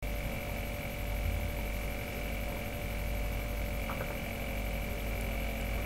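Steady electrical hum and hiss with a few faint, thin, unchanging tones: background noise of the recording setup.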